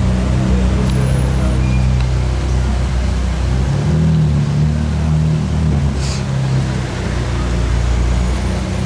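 Ferrari 458 Spider's V8 running steadily at low speed as it pulls away. About four seconds in it gives way to a Lamborghini Aventador SVJ Roadster's V12 idling as the car creeps up to a barrier and stops.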